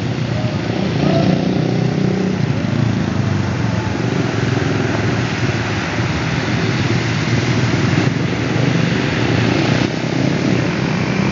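Steady road traffic on a flooded highway: motorcycle and car engines running as vehicles drive slowly through standing water.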